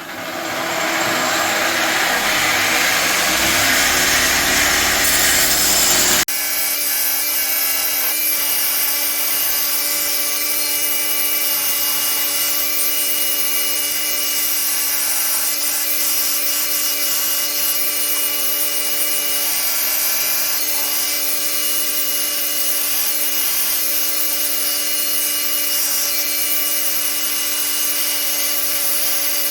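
Workshop power tools working a Damascus steel knife blank. A harsh cutting sound swells up at the start and breaks off abruptly about six seconds in. A steady machine hum with a constant whine follows.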